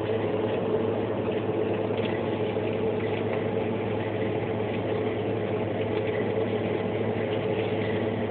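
Steady low hum of a drinks vending machine's cooling unit running, unchanging throughout.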